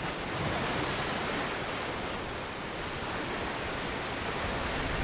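A steady, even rushing noise with no distinct events, like background air or recording hiss.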